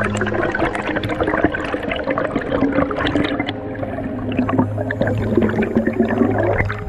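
Underwater bubbling and water rushing around a head-mounted camera housing as a freediver moves near the surface, heard as a dense crackle of small pops and gurgles.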